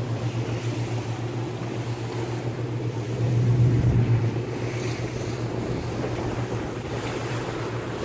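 Speedboat engine droning steadily under way, with water rushing past the hull and wind on the microphone; the sound swells louder for about a second near the middle.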